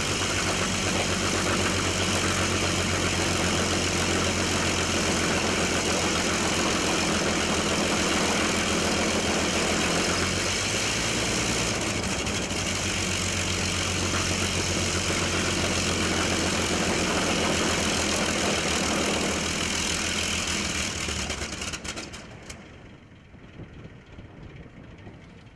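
Fairey Firefly's Rolls-Royce Griffon V12 aero engine idling steadily on the ground, propeller turning. Near the end it is shut down and the sound dies away.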